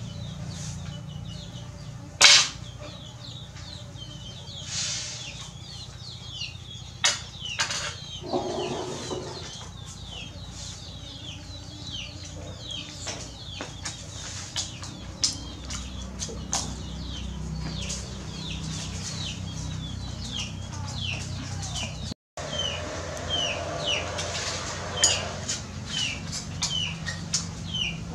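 Chicks peeping over and over, short falling cheeps that come thicker and more regularly near the end, with sharp clinks of a fork and knife against a metal tray now and then, the loudest about two seconds in.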